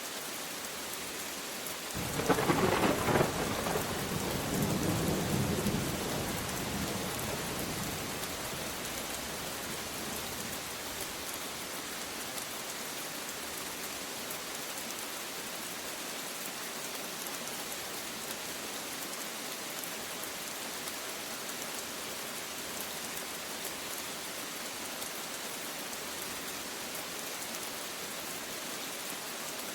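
Steady rain with a thunderclap about two seconds in: a sharp crack that rolls into a rumble and fades over several seconds, leaving the even hiss of rain.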